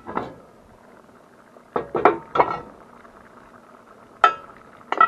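Cast-iron Dutch oven lid and metal lid lifter clanking against the pot and the steel stove shelf: a handful of sharp metallic clinks with a brief ring, in a cluster about two seconds in and again near the end.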